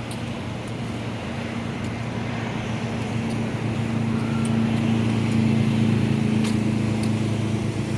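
Street traffic, with a motor vehicle's engine running steadily. Its low hum grows slowly louder over the first half, then holds.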